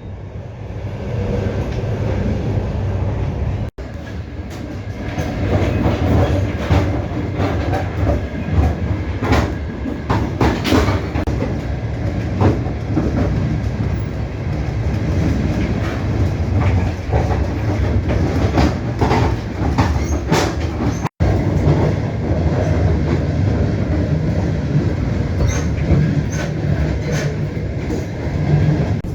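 Passenger train carriage running along the track, heard from inside: a steady low rumble with the clickety-clack of wheels over rail joints, the clicks thickest through the middle. The sound cuts out for an instant twice, about 4 and 21 seconds in.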